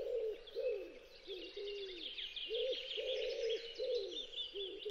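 A run of short, arched hooting calls from an animal, repeated about twice a second, with fainter high-pitched chirping behind them.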